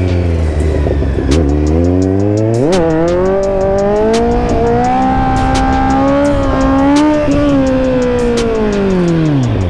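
Kawasaki Z900 inline-four engine revving. It runs low at first, rises sharply about three seconds in, holds a high steady note for several seconds, then drops away near the end.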